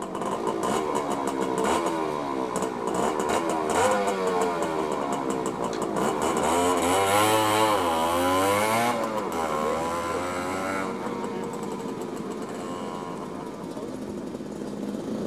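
Hercules 125 military motorcycle two-stroke engines running and being revved, the pitch rising and falling repeatedly. The revving is loudest about seven to nine seconds in, then settles to a steadier run.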